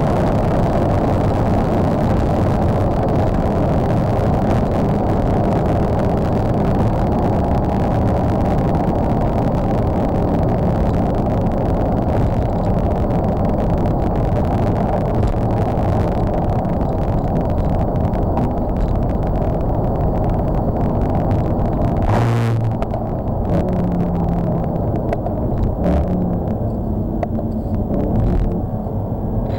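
Inside the cabin of a Mercedes-Benz C63 AMG at high speed: a steady din of engine, wind and tyre noise, which eases and loses its hiss in the last third as the car slows from about 190 to under 80 km/h. A single sharp knock comes about two-thirds of the way through.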